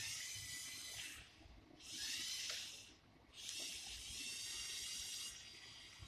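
Lego Mindstorms EV3 motors whirring in three bursts of a second or so each, a high whine with several tones, as the remote-controlled car is driven.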